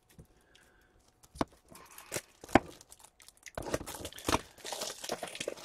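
Trading cards handled with a few sharp clicks, then a run of crinkling and tearing from a little past halfway as card packaging is opened.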